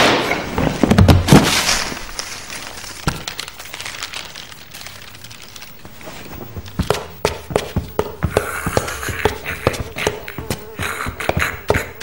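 Cartoon sound effects: a loud burst of thuds and knocks at the start, then a quieter lull, then a run of sharp, irregular taps and clicks from about seven seconds in.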